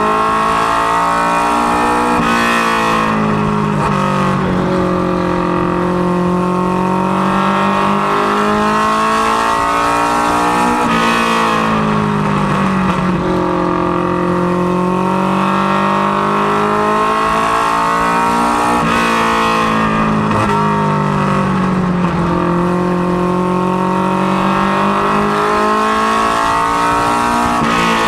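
Ministock race car's engine, a Ford Mustang LX notchback, running hard at speed, heard from inside the cockpit with road and wind noise. Its note sinks and climbs again about every eight seconds as the driver lifts for each turn and gets back on the throttle.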